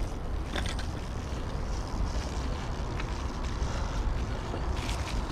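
Wind buffeting the camera microphone as it moves along a dirt trail: a steady low rumble with scattered short clicks over it.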